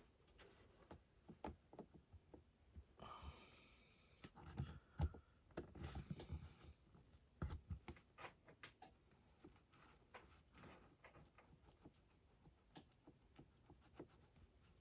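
Near silence with faint scattered clicks and taps of small parts being handled, and two brief soft hisses about three and six seconds in.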